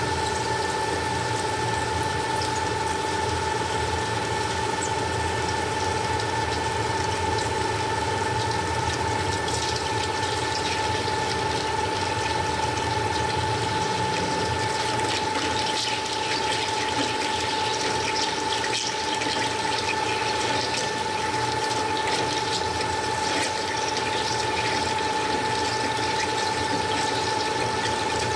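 CNC cutting machine running with a steady whine and crackling noise, the crackle thicker through the middle.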